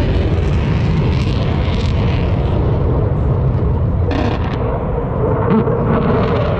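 Military fast jet's engines heard from the ground as it flies past: a loud, steady, deep rumble.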